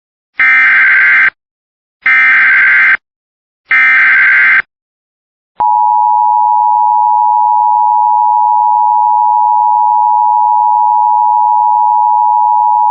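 Emergency Alert System header: three identical harsh, buzzy data bursts of about a second each, spaced about a second apart, carrying the encoded Flash Flood Warning. About five and a half seconds in, a loud, steady attention tone begins and holds unchanged.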